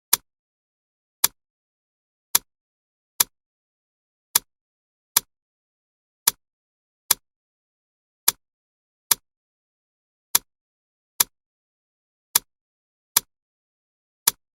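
Clock ticking: about fourteen sharp, dry ticks, roughly one a second and spaced a little unevenly, with silence between them.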